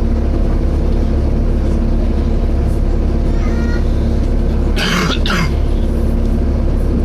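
Volvo B7TL double-decker bus heard from inside while under way: the engine and radiator cooling fan make a steady low drone with a steady hum. About five seconds in, a short, sharp double burst of noise cuts across it.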